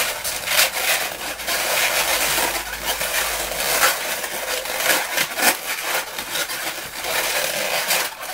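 Inflated latex modelling balloons (Qualatex 260s) rubbing and squeaking against each other as they are twisted and wrapped by hand. The result is a continuous run of short squeaks and scrapes.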